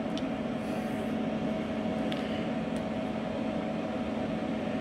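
Steady hum and fan noise from ham radio station equipment, with a faint steady tone held throughout and a couple of faint ticks.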